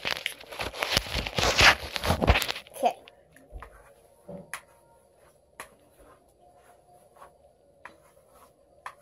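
Handling noise as a phone is moved about and propped up: loud rustling and rubbing against its microphone for the first few seconds. It then goes quiet, with a few faint, scattered clicks.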